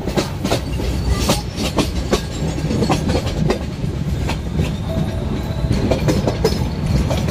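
Meter-gauge passenger train running slowly, its wheels clacking irregularly over the rail joints above a steady low rumble.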